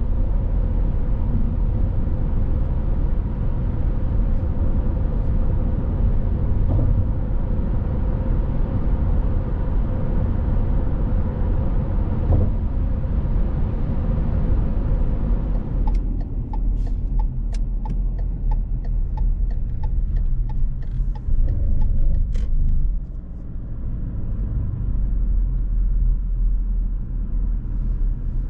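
Steady road and tyre noise heard from inside a moving car on a highway. About halfway through it changes to a thinner, quieter running noise with a run of sharp clicks for several seconds.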